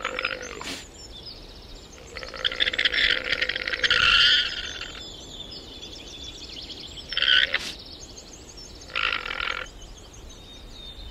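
Llama giving a series of rasping calls made of rapid pulses: a short one at the start, a long one of about three seconds, then two short ones. A faint steady high tone sounds underneath.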